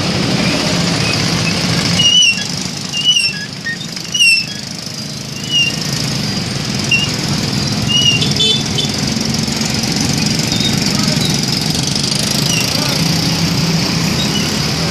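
Bus engine running steadily, with several short, high chirps or squeaks over it during the first nine seconds or so.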